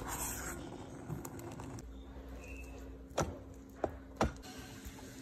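A kitchen utensil knocking sharply against a cooking pot three times within about a second, over a faint steady hum.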